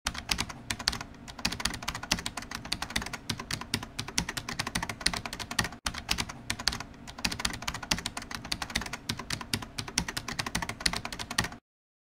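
Keyboard typing sound effect: a fast, uneven run of key clicks, several a second, with a split-second break about halfway through, cutting off just before the end.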